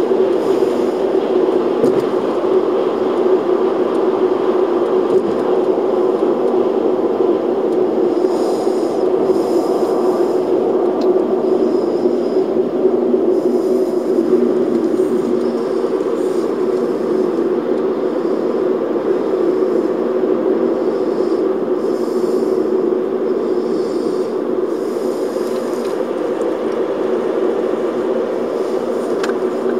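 Steady road and engine noise of a car driving at motorway speed, heard inside the cabin, easing slightly near the end.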